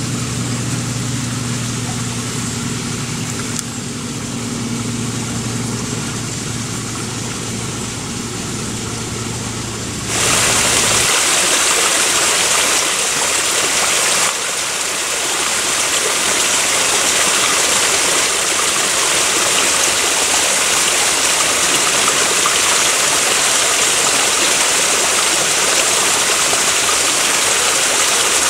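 For the first ten seconds a steady low hum with a soft background hiss, then an abrupt change to a small brook running over rocks: a steady, louder rush of flowing water.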